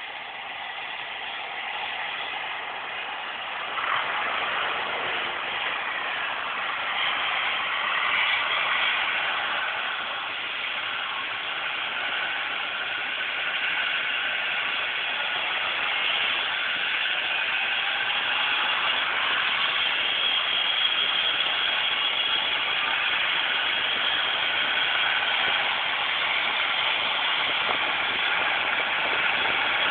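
Trauma helicopter's turbine engines and rotor running. The sound grows louder over the first several seconds, then holds steady with faint high whining tones over a rushing hiss.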